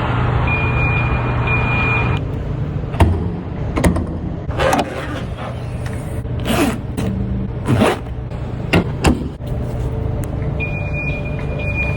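Ferrari 296 GTB's twin-turbo V6 running at a steady idle, with a thin high tone over it at first and again near the end. Through the middle comes a string of sharp clicks and knocks, some trailing off in short falling sweeps.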